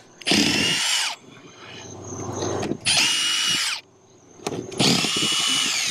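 Cordless impact driver run in three short bursts of motor whine, backing old screws out of a metal roof seam. The last burst is the longest and winds down as it stops.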